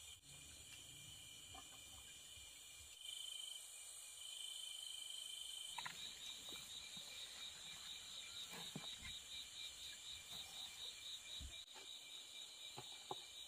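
Faint chorus of insects chirping: a steady high-pitched buzz, joined about six seconds in by an even pulsing trill at about three pulses a second, with a few faint scattered clicks.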